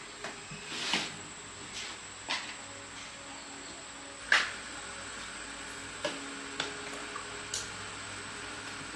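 Scattered light clicks and knocks of small parts being handled, the loudest about four and a half seconds in, over a steady faint hum.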